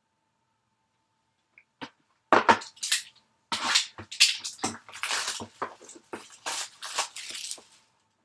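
A cardboard trading-card hobby box is slid off a stack and opened by hand. After a quiet start, from about two seconds in there is a dense, uneven run of cardboard scrapes, rustles and clicks.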